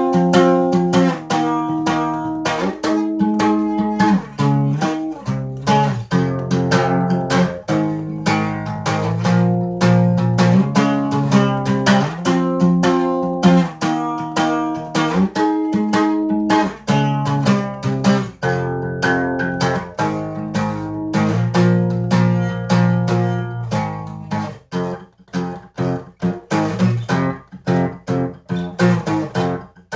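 Cutaway acoustic guitar played solo, ringing chords picked and strummed in a flowing pattern. In the last few seconds the playing turns choppy, with short separated notes.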